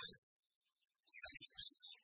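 A man's voice yelling in two short outbursts: one right at the start, and another of about half a second a little past the middle.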